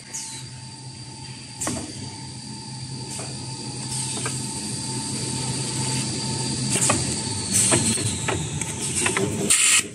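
Toilet paper roll bagging machine running: a steady mechanical hum with a thin high whine, broken by several sharp clacks of its pusher and sealing gear, and a short loud burst of noise near the end.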